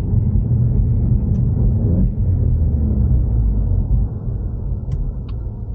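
Low, steady rumble of a car on the move, picked up by a camera strapped to the outside of the Ford Mustang EcoBoost; it eases off about four seconds in.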